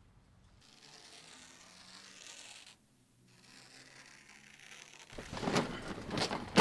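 A soft hiss that swells up twice, broken by a brief dip, then loud irregular scraping and rustling noises from about five seconds in.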